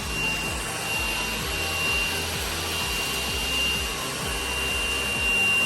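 Tefal X-Nano cordless stick vacuum running: a steady high-pitched motor whine over a rush of air, as it is pushed across a hard floor.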